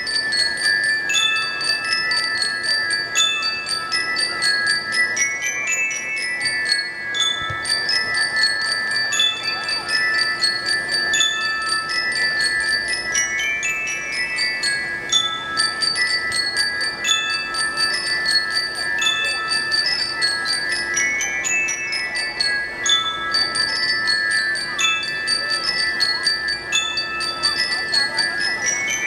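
Marching band bell lyres (glockenspiels) playing fast runs of struck notes that climb and fall, the phrase repeating over and over above held ringing tones.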